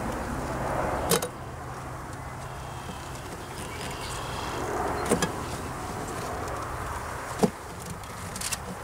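Metal hive tool prying and scraping at a feeder can jammed in a wooden bee package box, with a few sharp knocks spread through and a faint squeak midway. A distant engine's low drone stops about a second in.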